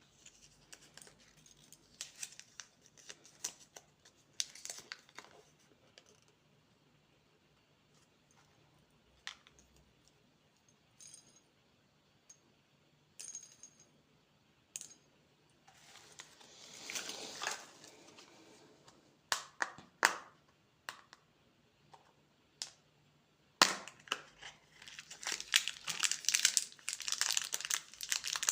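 Candy wrappers crinkling and tearing open. Scattered crackles and clicks give way to a few seconds of continuous crinkling near the end.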